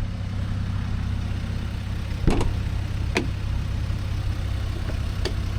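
A diesel Jeep Gladiator's engine idling with a steady low hum. A few short sharp knocks sound over it, the loudest a little over two seconds in.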